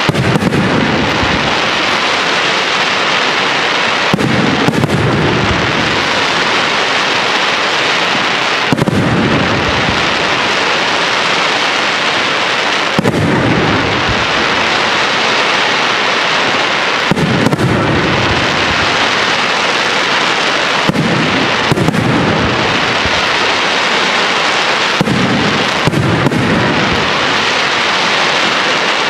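Aerial fireworks display: shells bursting with heavy booms every few seconds over a continuous dense hiss of burning stars and rising comets.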